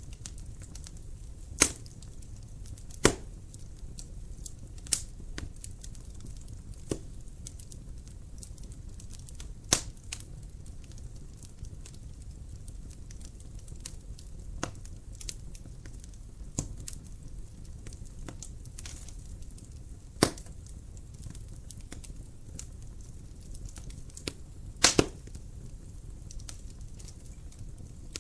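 Wood fire crackling in a fireplace: irregular sharp pops and snaps over a steady low rumble, with a few loud pops, two in quick succession near the end.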